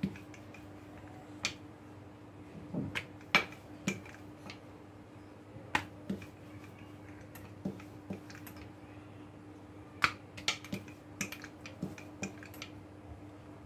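Wooden rolling pin rolling out paratha dough on a granite countertop, giving irregular sharp clicks and knocks as the pin's ends and handles bump the stone.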